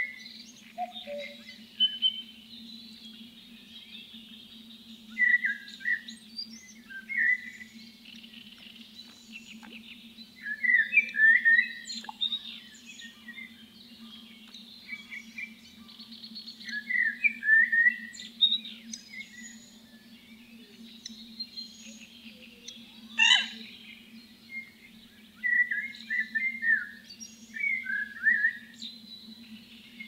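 Songbirds singing in short chattering phrases every few seconds, with fainter birds calling behind them, over a steady low hum.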